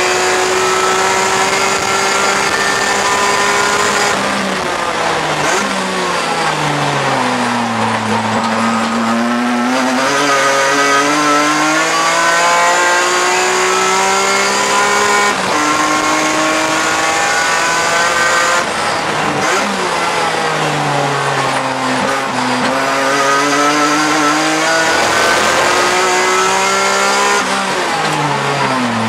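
Race-prepared BMW E46 M3's straight-six engine at full throttle, heard from inside the cockpit. The revs climb steadily through the gears with quick upshifts, and fall away three times in downshifting sweeps under braking, about four seconds in, two-thirds of the way through and near the end.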